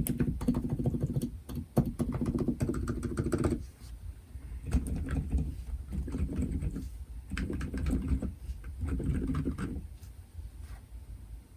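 Typing on a Womier K66 mechanical keyboard fitted with lubed and filmed Silent Alpaca silent linear switches, with no desk mat under it. Quick runs of muted keystrokes come with short pauses between them, and the typing trails off near the end.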